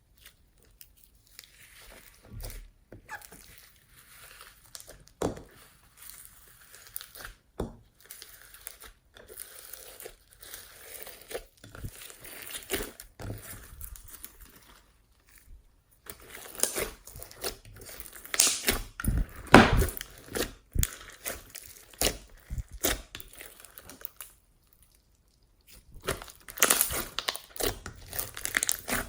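Slime being pressed, stretched and mixed by hand, making irregular sticky crackles, clicks and pops. These grow denser and louder about halfway through, then stop briefly before starting again.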